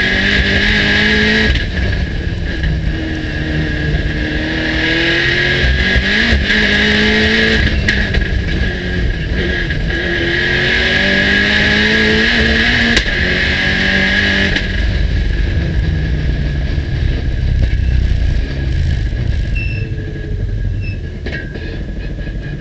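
Mitsubishi Lancer Evolution rally car's turbocharged four-cylinder engine, heard from inside the cabin, pulling hard at high speed. The revs climb under full throttle and drop back several times, with a steady high whine while on the throttle. From about 15 s in it runs off the throttle at lower revs as the car slows and drops a gear.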